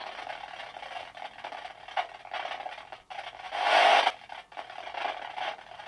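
Spirit box sweeping through radio frequencies: choppy bursts of static, with a louder rush of hiss about three and a half seconds in.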